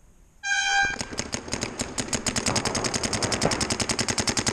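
A short horn blast about half a second in, then paintball markers firing in fast, even streams of more than ten shots a second that keep going.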